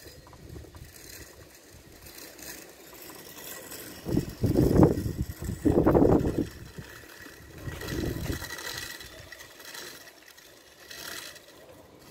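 Strong wind gusting and buffeting the microphone, with two loud gusts about halfway through and a weaker one after.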